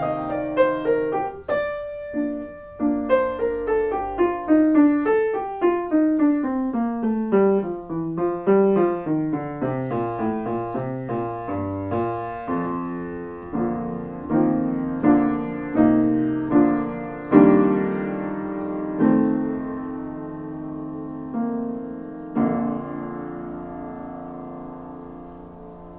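Solo piano playing the close of a short classical piece: a long run of notes stepping downward, then a series of chords, ending on a held final chord that fades out.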